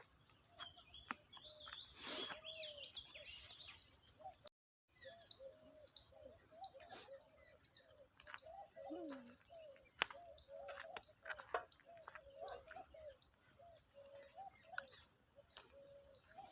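Several wild birds calling: high twittering chirps for a few seconds near the start, over a low-pitched short call repeated again and again throughout, with a few sharp clicks. The sound cuts out briefly about four and a half seconds in.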